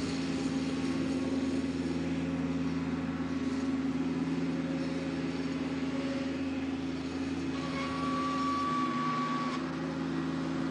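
A vehicle engine idling with a steady, even low hum over a constant rushing noise, and a faint high tone for a couple of seconds near the end.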